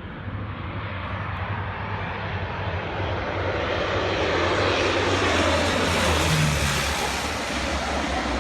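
Canadair CL-415 Super Scooper's twin turboprop engines and propellers on a low pass, the sound building from about three seconds in to a peak just past the middle, then easing slightly as it goes by.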